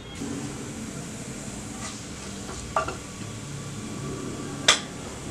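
Cumin and fennel seeds sizzling quietly in hot oil in a nonstick pan: tempering the whole spices before the onions go in. The pan is stirred, with a small knock just under three seconds in and a sharp, louder knock against the pan near the end.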